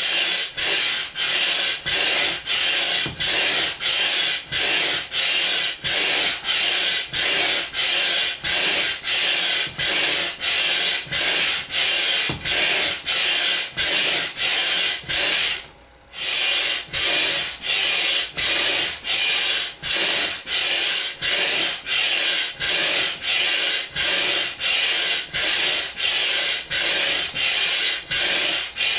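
Hand piston air pump worked in steady strokes, about one and a half a second, each stroke a rasping rush of air forced through the hose into a large vinyl inflatable; the pumping stops briefly about halfway, then resumes.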